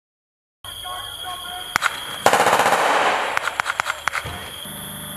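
Small-arms gunfire: a single shot, then a dense burst of rapid automatic fire, then a string of quick separate shots that thins out.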